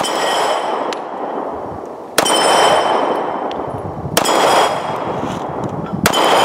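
Four shots from a Detonics Pocket 9, a straight-blowback 9mm pistol, firing 115-grain Fiocchi, about two seconds apart. Each shot is followed by a long echoing decay with a high ringing.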